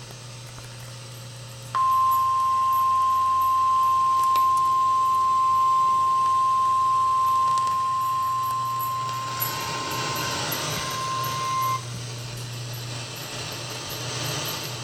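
Weather-radio emergency alert tone: a single steady high-pitched tone at about 1050 Hz, starting about two seconds in and lasting about ten seconds, over a low hum and receiver hiss. It is the attention signal that heralds a severe thunderstorm warning.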